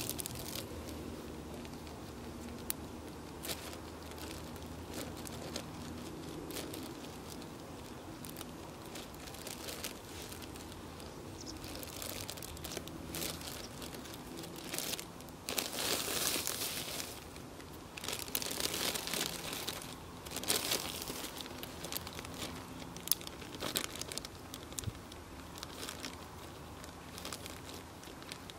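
Plastic zip-lock bags crinkling and rustling as they are handled and sealed, including a bag filled with ice; irregular crackles throughout, loudest a little past the middle.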